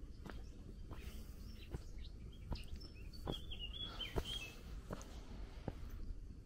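Footsteps on a dirt forest trail at a steady walking pace, about one step every three-quarters of a second, with a small bird chirping several short notes in the middle.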